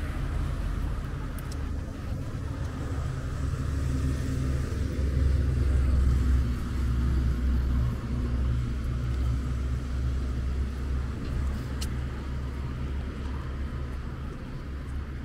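Street traffic: a low, steady motor-vehicle engine rumble that swells to its loudest about five to seven seconds in, then eases off.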